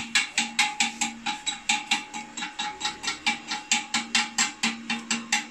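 Arc crackling from stick welding on a 400 A Mitsushi inverter welder, coming in quick, even pulses about four or five times a second over a steady hum, and stopping near the end as the arc is broken.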